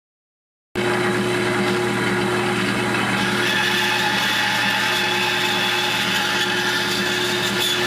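Bandsaw motor running steadily, a loud mechanical hum with a few steady tones, starting abruptly just under a second in.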